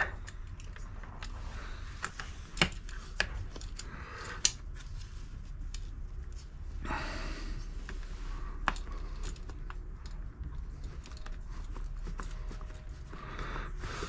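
Scattered small metallic clicks and taps of hand work on the motorcycle as a 10 mm bolt is fitted and tools are handled, the sharpest a few seconds in, with a brief rustle about seven seconds in.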